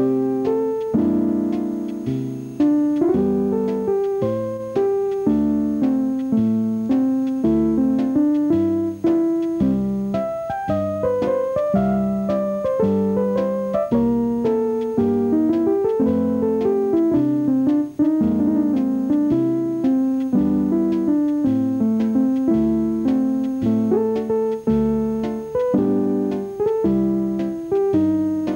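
Piano music: notes struck one after another in a steady rhythm, each dying away, with chords in the lower range under a moving melody.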